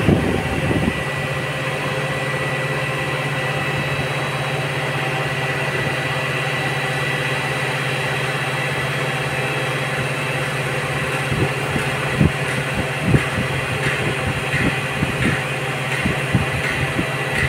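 Mobile crane's diesel engine running at a steady drone while the crane lifts a steel duct section, with a few short knocks in the second half.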